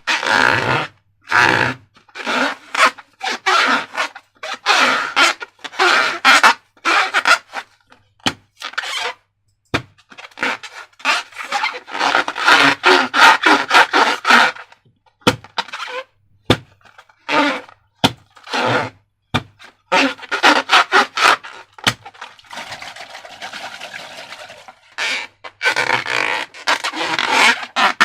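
Slime being squeezed out of balloons and worked by hand: sticky squelching and crackling in irregular bursts, with sharp little clicks.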